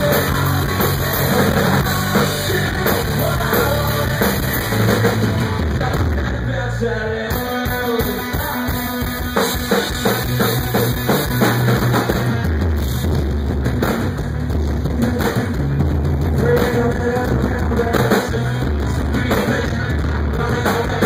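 Live rock band playing at full volume: electric guitar, bass guitar and drum kit. About seven seconds in the low end thins out for a moment, leaving mostly drums, then the full band comes back in.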